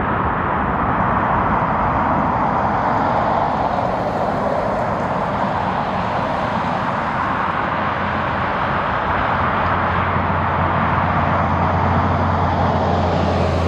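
Jet airliner engines running with a steady rushing noise; a low steady hum joins about two-thirds of the way through.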